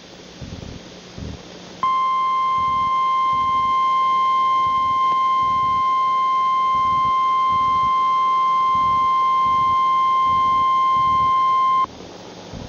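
Emergency Alert System warning alarm: a single steady electronic tone, of the kind NOAA Weather Radio sends at 1050 Hz ahead of a warning. It starts about two seconds in, holds for about ten seconds and cuts off sharply. Here it introduces a National Weather Service tornado warning.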